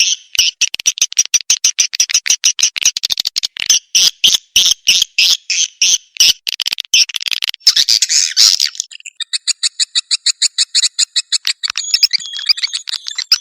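Swiftlet lure call recording: rapid, repeated dry chirps of swiftlets. About eight seconds in there is a brief noisy rasp, then a faster, buzzier trill with steady high tones runs through it.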